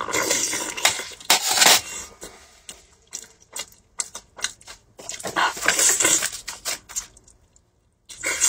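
Close-up eating sounds: a person biting, sucking and chewing sauce-covered shell-on shellfish, wet smacks mixed with crackly clicks of shell. It comes in two bouts, one in the first two seconds and another from about five to seven seconds in.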